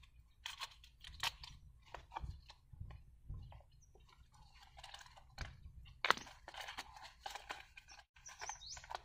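Scissors cutting through a thin plastic cup lid: a series of quiet, short crunching snips, with plastic cup handling among them.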